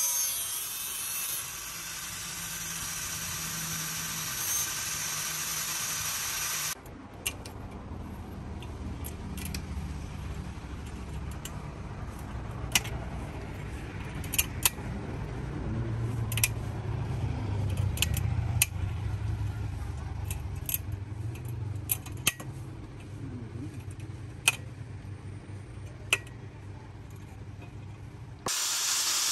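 Angle grinder grinding the teeth of a steel saw blade for about seven seconds, then it cuts off. After that a low rumble runs under scattered sharp metallic clicks as a hand tool is worked along the saw teeth.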